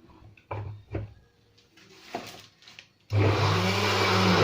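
A few light knocks, then about three seconds in an electric blender starts up loud, grinding soaked fava beans, onion, herbs and water into falafel (ta'meya) paste. Its motor pitch rises and then sinks as it runs.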